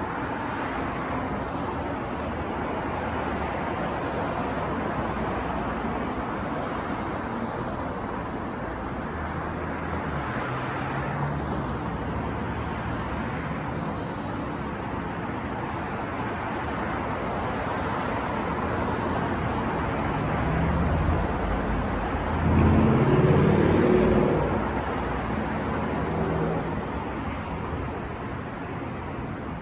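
City street traffic: a steady wash of passing cars. About three-quarters of the way through, a louder vehicle passes with a low engine hum, then fades.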